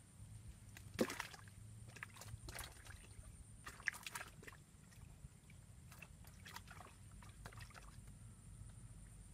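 Faint water sounds at the pond's edge: small splashes and sloshing, with a few sharp ones about a second in and again near four seconds.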